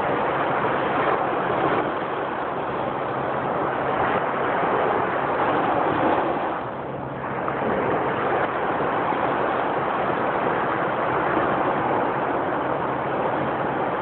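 Ocean surf washing onto a sandy beach: a continuous rushing of waves that eases briefly about halfway through, then builds again.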